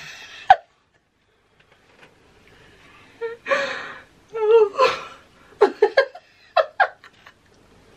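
A woman laughing hard in bursts, with gasping breaths, and a run of short, quick laugh pulses near the end.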